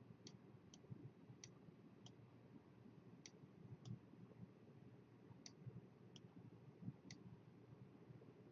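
Near silence, with about ten faint, sharp, irregularly spaced clicks: a pen stylus tapping and writing on a tablet.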